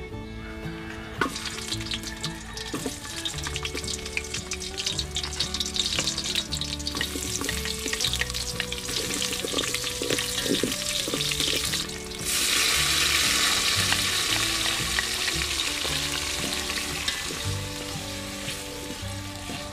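Sliced onions and garlic sizzling and crackling in hot oil in an aluminium pot, stirred with a spatula. About twelve seconds in, more vegetables (tomatoes) go in and the sizzle turns louder and more even.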